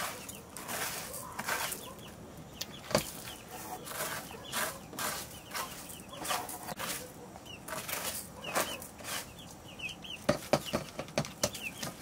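Raw rice grains swept by hand off a woven bamboo tray into an aluminium pot: repeated rustling and scraping of grains sliding, with a run of sharper clicks near the end. Chickens clucking in the background.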